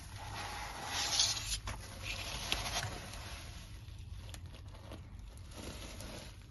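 Fingers brushing through the plastic blades of an artificial grass sample, a dry rustling that swells several times in the first three seconds. It then turns to softer scratching with a few light clicks as a fingertip moves over the turf's woven backing.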